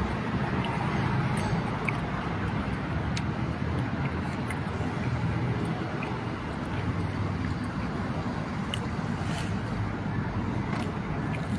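Steady street traffic noise, cars passing by, with a few faint clicks.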